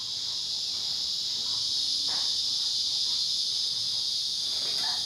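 Steady, high-pitched insect chorus, an unbroken shrill drone.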